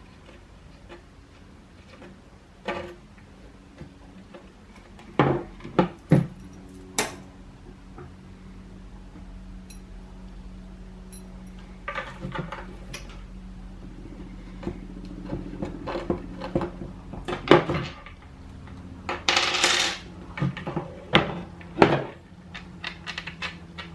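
Skateboard mounting bolts clinking and tapping as they are handled and pushed through the deck's holes. There are scattered sharp metal clicks and knocks, and a longer scraping rub just before 20 seconds in.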